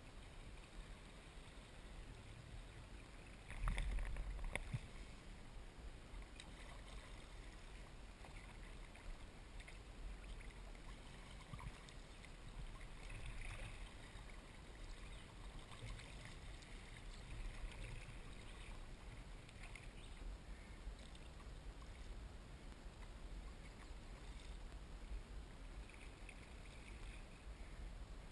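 Soft splashes of a kayak paddle dipping into the water every couple of seconds, with water trickling along the hull; faint overall, with a brief louder bump and rumble about four seconds in.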